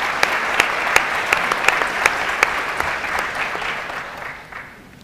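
Large audience applauding, dying away over the last second or so.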